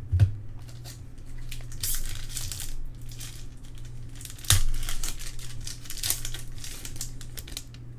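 Trading card pack wrappers crinkling and tearing as packs are opened and cards handled, with one sharp tap about four and a half seconds in. A steady low electrical hum runs underneath.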